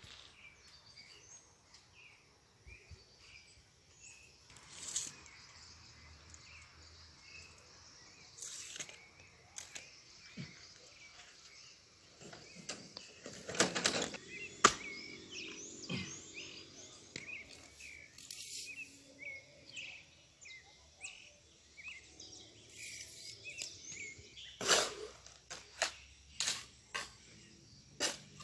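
Small birds chirping in the background, with scattered sharp knocks and scrapes every few seconds.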